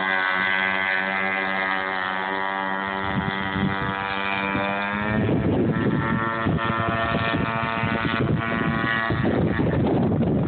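Radio-controlled model boat's motor running at a steady pitch. About five seconds in, the sound turns rougher and noisier and the tone fades under it.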